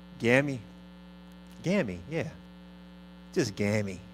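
A man's voice making three short wordless sounds close to the microphone, each rising and falling in pitch, over a steady electrical hum.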